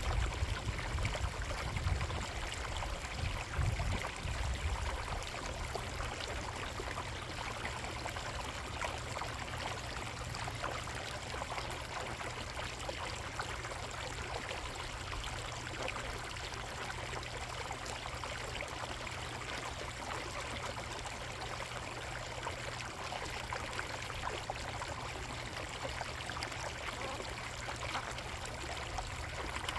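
Water trickling and splashing steadily in a koi pond's water feature, with some low rumbling in the first few seconds.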